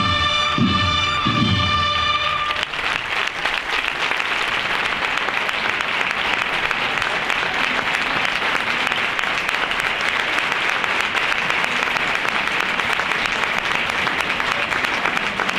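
A brass band with drums finishes a processional march on a held chord that ends about two and a half seconds in. A large crowd then applauds steadily.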